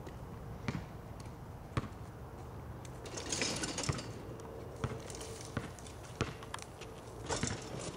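Basketball bouncing on an asphalt street: single sharp thuds about a second apart, with a hissy rattle around three to four seconds in.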